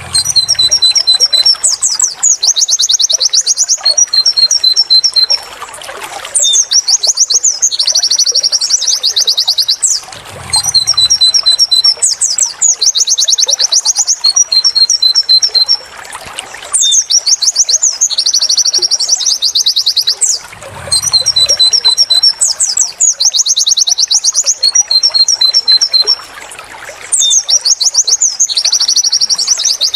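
Pleci (white-eye) singing its 'wit wit tulit tulit' song, loud and high-pitched: quick trills, rows of short repeated 'wit' notes and sweeping 'tulit' notes, broken by short pauses. The same sequence of phrases repeats about every ten seconds, as a looped training recording.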